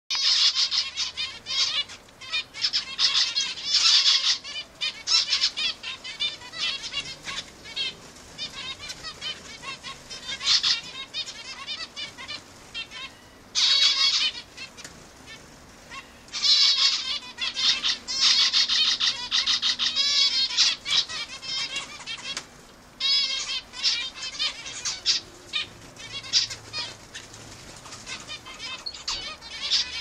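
A flock of zebra finches calling: many short, nasal beeping calls overlapping in busy bursts, with brief lulls.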